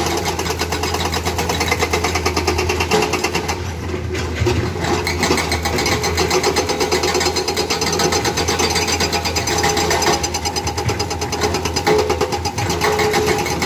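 Hydraulic breaker on a Komatsu excavator hammering in rapid, even blows, over the excavator's steady diesel engine.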